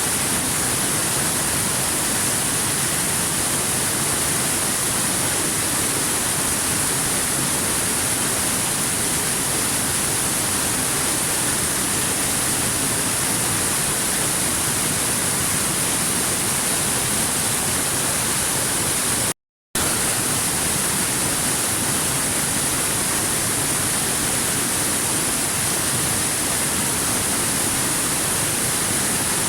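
Waterfall running steadily, an even rushing noise with no change in level, that cuts out completely for a split second about two-thirds of the way through.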